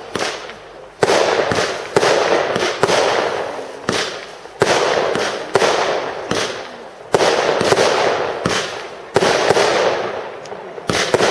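A compound fireworks cake firing shot after shot, about one a second. Each shot is a sharp bang that fades out over about a second.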